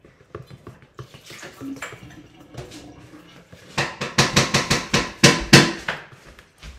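Kitchenware clattering: a quick run of sharp clinks and knocks starting about four seconds in and lasting about two seconds, with a few scattered knocks before it.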